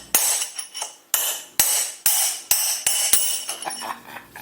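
Hammer blows on a steel punch, about ten sharp ringing metal strikes at two to three a second, driving a stuck part, probably a bearing, out of a Polaris jet ski pump.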